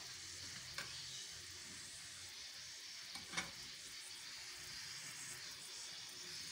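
Steady, faint hissing of water and sugar heating in a pan on the stove for sugar syrup, with a couple of faint ticks.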